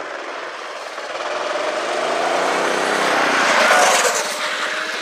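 Go-kart with a swapped-in Predator 224 single-cylinder four-stroke engine running flat out in a speed run, its note mixed with a rushing noise that grows louder to a peak about four seconds in as the kart nears.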